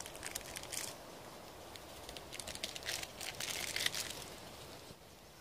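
Small coffee sachet crinkling as it is handled, torn open and emptied, in two spells of crinkly rustling, the second longer, dying away after about four seconds.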